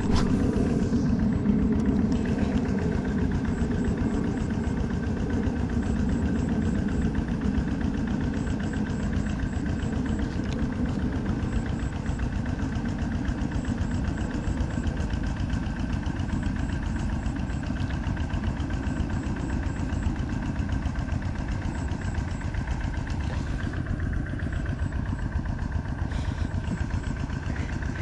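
A small engine running steadily at a constant speed, without revving.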